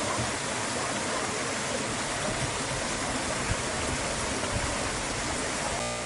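Shallow stream running over and between large boulders: a steady rush of water.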